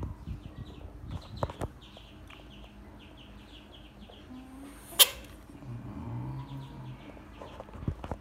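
Faint chirping of small birds in the background. About five seconds in comes a single sharp click, the loudest sound, followed by a brief low rumble, with a few soft knocks near the start and a low thump near the end.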